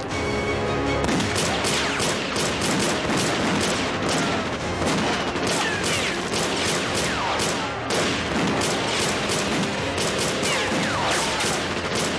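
Dense gunfire: rapid automatic rifle bursts and single shots overlapping without pause, starting about a second in.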